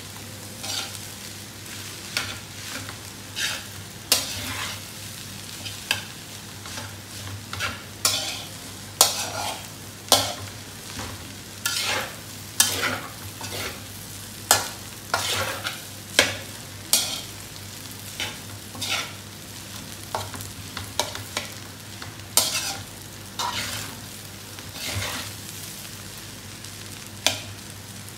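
Metal slotted spatula scraping and turning fried rice in a wide aluminium pan, in irregular strokes about one or two a second, over a low frying sizzle.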